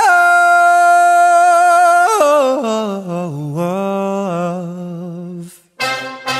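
A single unaccompanied voice singing long held notes, a cappella. It holds one steady high note, drops lower about two seconds in with some wavering, fades and breaks off briefly, then comes back on another held tone near the end.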